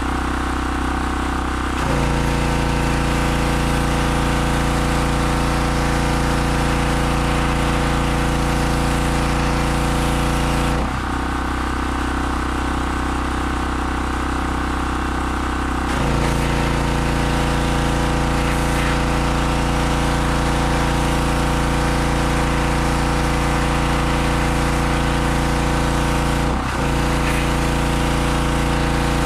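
Harbor Freight 2500 PSI pressure washer's 160cc gasoline engine running steadily while the water jet sprays. The spray and the engine's note change together a couple of times: the spray stops for about five seconds in the middle, then starts again, with a brief break near the end.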